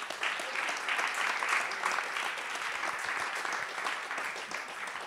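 Audience applause: a burst of clapping that starts suddenly and thins out toward the end.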